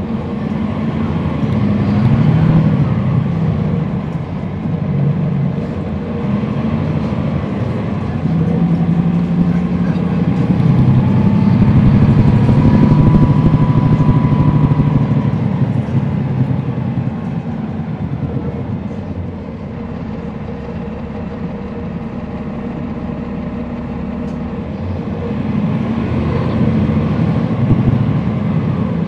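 Cummins ISL9 straight-six diesel engine of a NABI 40-foot transit bus, heard from on board while the bus is driven. The engine note builds and stays strong through the first half, eases off, then builds again near the end.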